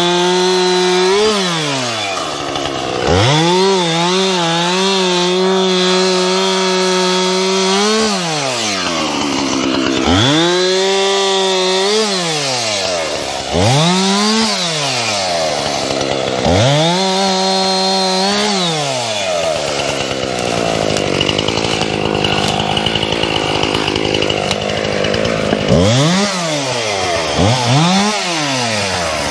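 Two-stroke chainsaw engine revved to full throttle in repeated long bursts, each dropping back toward idle between them, as when cutting up wood. Near the end it is blipped several times in quick succession.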